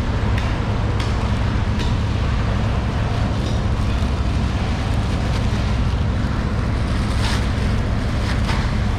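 Steady low mechanical hum with scattered sharp knocks and clicks.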